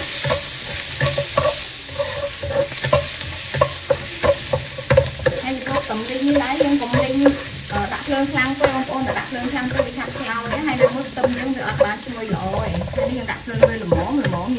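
Minced garlic sizzling in hot oil in a nonstick wok, stirred constantly with a spatula that scrapes and taps against the pan many times over.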